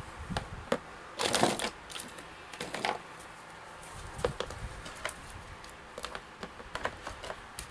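Small plastic action figures clicking and clattering as they are picked up and set down on a plastic cutting mat: a run of light, irregular taps, with a denser burst of clatter about a second and a half in.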